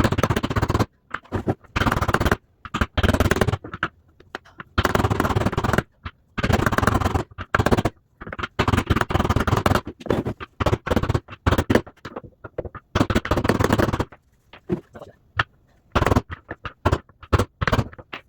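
Metal hammer blows driving a new ball bearing into its seat in a washer's rear drum housing, struck rapidly in runs of about a second with short pauses, then separate single taps near the end.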